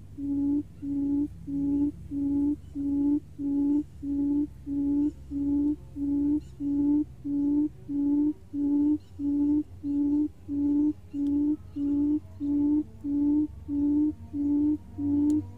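Recorded buttonquail lure call played from a small portable speaker: a low hooting note repeated steadily about twice a second.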